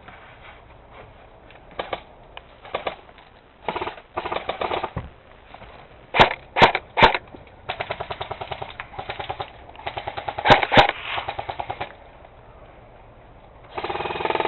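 Airsoft guns firing in rapid full-auto bursts of quick clicks, with a few louder, sharp single cracks in between. The cracks come three in quick succession a little over six seconds in, then two more around ten and a half seconds.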